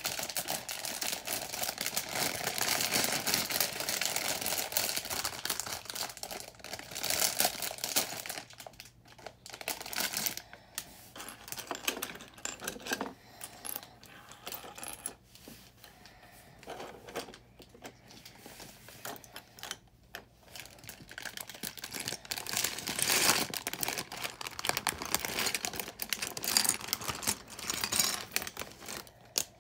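A plastic bag of LEGO pieces crinkling and rustling as it is handled, in stretches, with small plastic bricks clicking and clattering on a hard surface.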